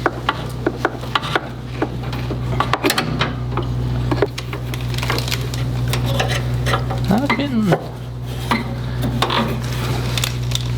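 Scattered metal clicks and clinks of hand tools working the small spring clamp on a mower's fuel hose, over a steady low hum.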